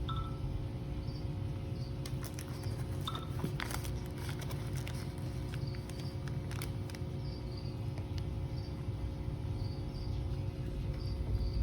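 A steady low hum with faint short high chirps recurring every second or so, and a few crackles and clicks in the middle, typical of plastic fish bags and a shipping box being handled.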